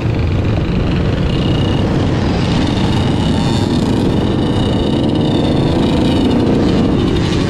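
Yamaha YZ125 two-stroke dirt bike engine running as it is ridden, mixed with quads and other dirt bikes running close by. It is a steady, loud engine noise with a wavering high whine.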